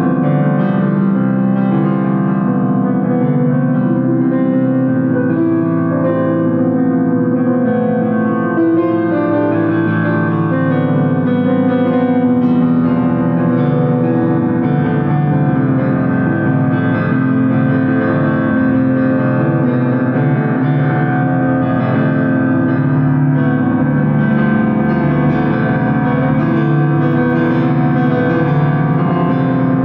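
Piano music with sustained, overlapping notes at an even level.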